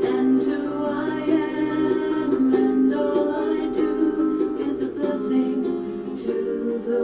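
A song with singing over plucked-string accompaniment.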